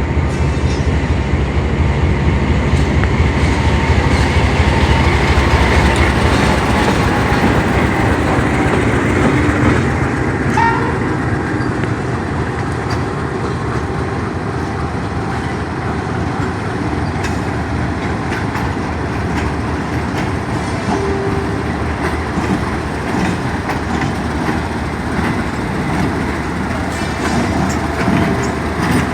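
A Pakistan Railways passenger train arriving at a platform behind a GEU-40 diesel-electric locomotive. The locomotive's heavy low engine rumble dominates the first ten seconds or so, then the coaches roll past more quietly with wheel clicks over the rail joints.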